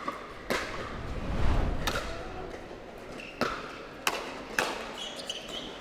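Pickleball paddles striking a hard plastic ball in a quick net exchange: a string of about five or six sharp pops, spaced unevenly. A low thud about a second and a half in is the loudest sound.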